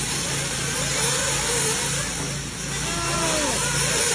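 Radio-controlled model cars racing: motors whining in short glides that rise and fall in pitch, over a steady hiss.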